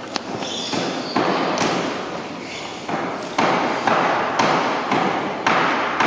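Table tennis ball being hit back and forth, sharp clicks off paddles and table roughly every half second with a short pause partway through, each click echoing in a large hall.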